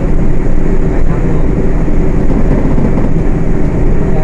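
Diesel engine of a Volksbus 18.280 OTS city bus running steadily while the bus is under way, a loud, even drone.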